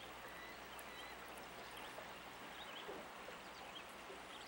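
Faint steady rush of flowing river water, with a few faint short high chirps.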